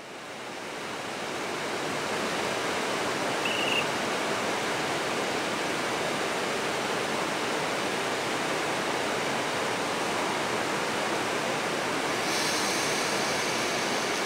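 EP07 electric locomotive standing at the platform, its cooling blowers running with a steady, even rush of noise. A short faint high beep sounds about three and a half seconds in, and about twelve seconds in a higher hiss joins the noise.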